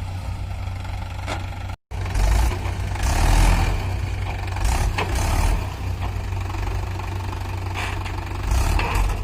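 Mahindra 575 DI tractor's diesel engine running steadily at low revs. The sound cuts out completely for an instant about two seconds in, and louder swells of noise come a second later and again near the end.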